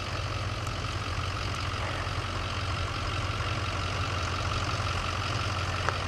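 Engine of a pickup truck fitted with a snowplow blade, running at idle: a steady low hum under a constant hiss.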